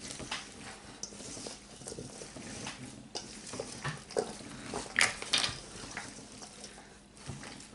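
Hands mixing raw sausage, diced potatoes, carrots and eggs in a stainless steel mixing bowl: irregular squishing of the mixture and soft knocks against the metal, the loudest about five seconds in.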